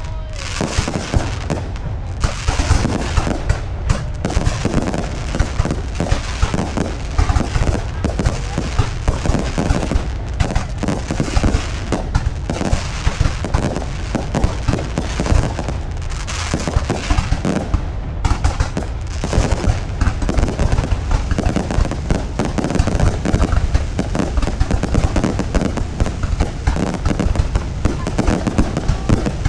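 Fireworks going off continuously: a dense stream of bangs and crackles over a steady low rumble.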